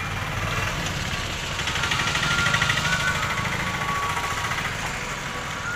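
An engine idling with a steady low pulsing rumble, swelling a little louder with a brighter hiss about two seconds in.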